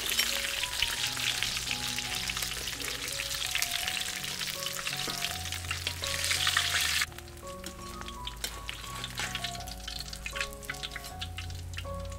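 Fish pieces crackling and sizzling as they fry in hot oil in a metal pan. The frying is loud for about the first seven seconds, then drops suddenly and carries on more softly.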